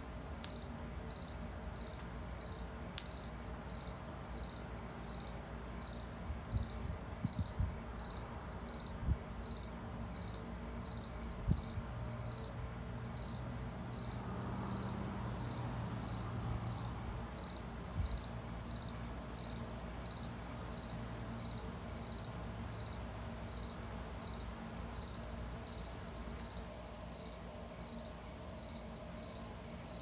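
Crickets chirping in a steady, evenly spaced rhythm, with a few sharp pops from a wood campfire near the start and some low soft knocks in the middle.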